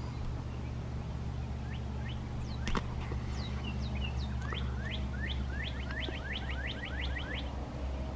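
A songbird singing: a few scattered chirps, then a run of quick downward-slurred notes, about four a second, that stops about a second before the end. Under it runs a steady low rumble, with one sharp click nearly three seconds in.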